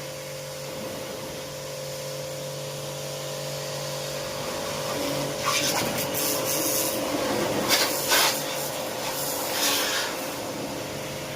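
Kortex KT-R10 3000-watt electric pressure washer running with a steady motor hum under the hiss of its water jet. The spray hiss surges louder three times in the second half.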